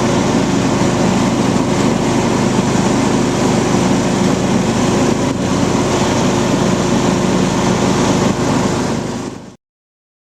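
Husqvarna YTH21K46 riding lawn mower engine running steadily at an even speed. The sound cuts off suddenly near the end.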